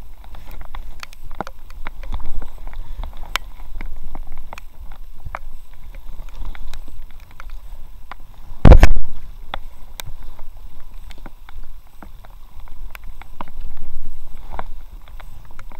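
Scattered small knocks and rubbing as a kayak paddle shaft is handled in an inflatable kayak, with one loud thump just under nine seconds in, over a steady low rumble.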